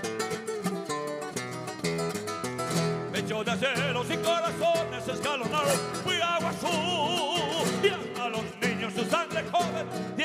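Live band music led by a strummed acoustic guitar, with bass underneath. From about three seconds in, a melody with strong vibrato carries the tune over the accompaniment.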